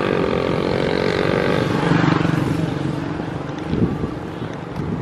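Small motorcycle engines passing close by on the road, the engine note shifting in pitch as one goes past, with a short knock about four seconds in.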